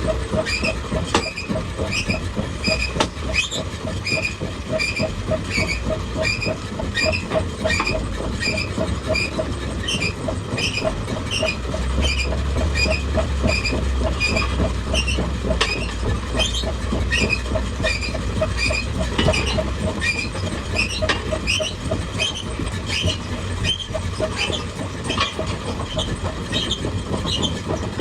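Hydraulic excavator engine running under a steady low rumble, with a rhythmic metallic squeak and clank repeating several times a second, typical of steel tracks and undercarriage in motion. The engine grows louder for several seconds in the middle.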